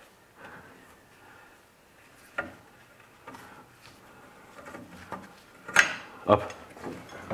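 Hand wrench working a rusted nut off a rear anti-roll bar drop link: scattered faint metallic clicks and clinks of the tool, with two sharper, louder clicks near the end as the nut comes off.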